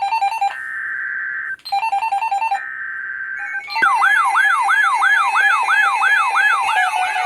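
Emergency Alert System header: three data bursts of about a second each, a harsh buzzing screech, alternating with short stepped electronic chimes. About four seconds in an alert tone starts, a steady tone under a fast wailing sweep that repeats about four times a second.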